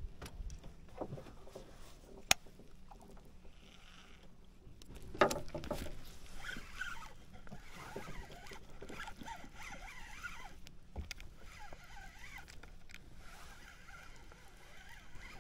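Handling noise from a spinning reel and fishing line being worked by hand in a small wooden boat: a sharp click about two seconds in, and a louder knock with rustling about five seconds in, then faint rustling.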